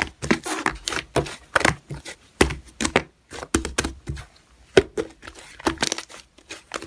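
Slime being squeezed and stretched by hand, giving irregular crackling clicks and small pops.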